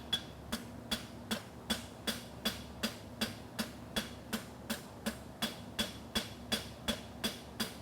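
Hand hammer striking a hot concave steel horseshoe on the anvil in a steady rhythm, about two and a half blows a second, each blow with a short metallic ring. The farrier is working a clip into the shoe.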